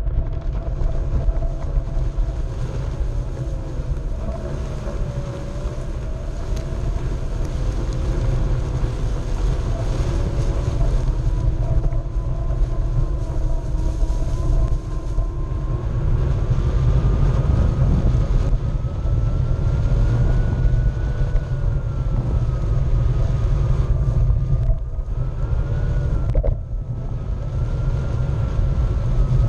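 Onewheel's electric hub motor whining as the board rolls across turf, its pitch drifting slowly up and down with speed, over a heavy low rumble of wind on the board-mounted microphone and the tyre on the grass.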